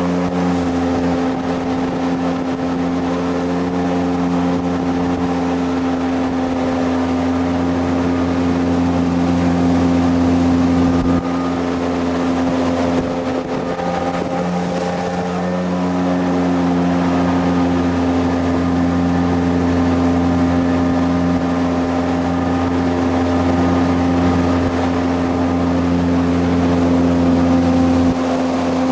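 Jet boat's engine running steadily at speed, a steady drone with a brief dip and change in pitch around the middle.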